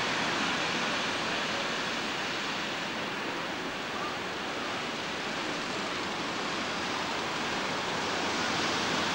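Steady rushing hiss with no distinct events or rhythm, dipping slightly in the middle.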